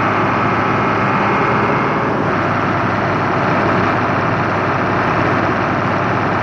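Hino H07C six-cylinder truck diesel engine running steadily at raised revs with the accelerator held.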